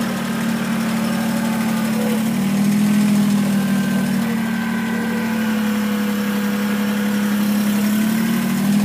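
Kubota BX2380 sub-compact tractor's three-cylinder 898 cc diesel running at a steady mid throttle as the tractor drives and turns. A constant hum whose pitch lifts slightly a couple of times.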